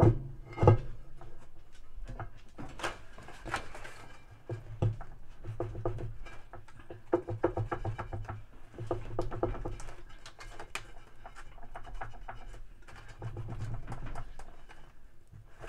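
Irregular clicks, knocks and dull thuds of plastic and metal parts being handled and fitted at the bottom of a top-load washer tub as the hub plate is worked into place.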